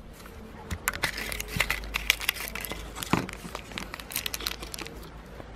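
Thin clear plastic bag crinkling and crackling in fingers, quick irregular crackles that start about a second in and thin out near the end.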